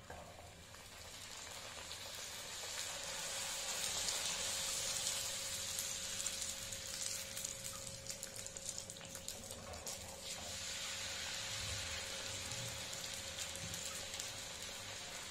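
A luchi (puffed puri) deep-frying in hot oil in a kadai: a steady sizzle with scattered crackles, swelling over the first few seconds and then holding.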